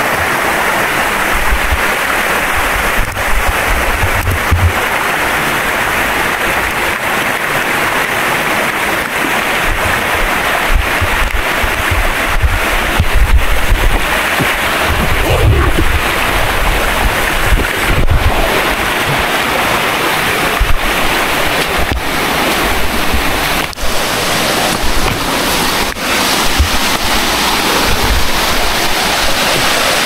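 Steady rush of flowing stream water, with low rumbling gusts of wind on the microphone now and then.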